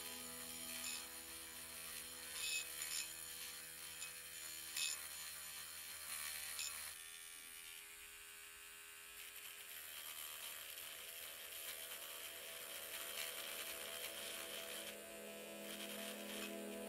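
A small electric motor buzzing steadily, with a few short clicks.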